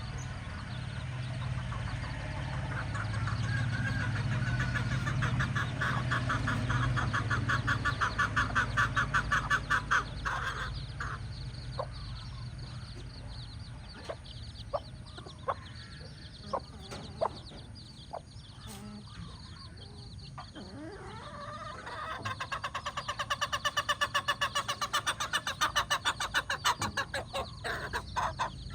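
A mother hen clucking in long, rapid runs, twice, with scattered single calls and clicks between them.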